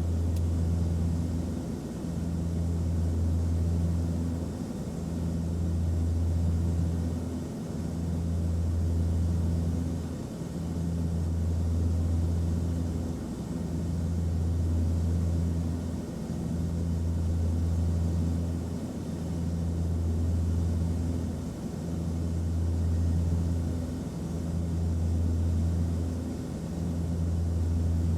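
Airliner cabin noise: a steady low rumble with hiss, the deep hum swelling and dipping regularly every few seconds.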